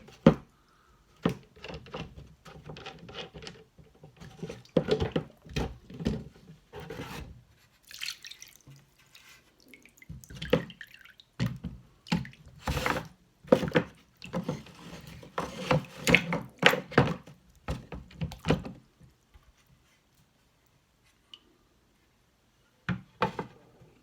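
Knife blade worked on a wet whetstone: irregular runs of short scraping strokes with water dripping and splashing. It stops about 19 seconds in, with a couple of light knocks near the end.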